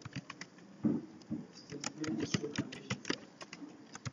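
Computer keyboard being typed on: quick, irregular keystroke clicks.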